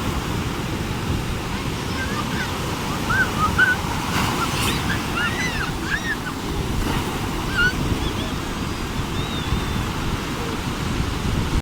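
Sea surf washing steadily, with wind on the microphone, and a few short high calls rising and falling in the middle.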